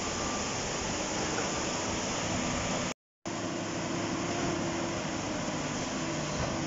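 Rushing floodwater with a JCB tracked excavator's diesel engine running steadily over it. The sound drops out completely for a moment about three seconds in, and the engine hum is stronger after that.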